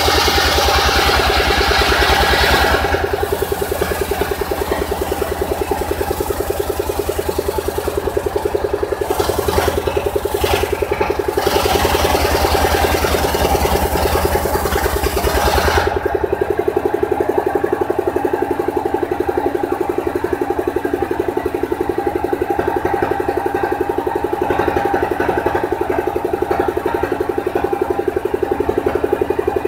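The engine of a mobile circular-saw rig runs steadily with a fast, even pulse while the saw blade rips lengthwise through a log with a hissing rasp. The cutting noise comes and goes, then stops about halfway through, leaving only the engine running.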